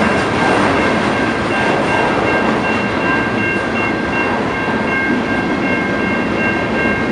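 Freight train boxcars and covered hopper cars rolling past close by: a loud, steady rumble and rattle of steel wheels on rail, with a steady high-pitched ringing tone over it.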